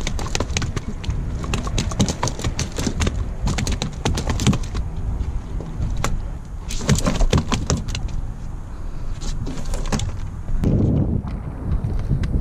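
Clicking and rattling of a landing net and a fluke being handled on a wooden pier deck, over a steady low rumble of wind on the microphone.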